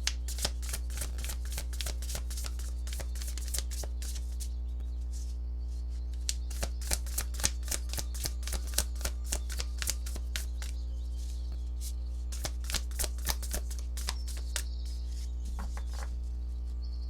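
A tarot deck being shuffled by hand, in three runs of rapid card flicks with short pauses between them, over a steady low drone.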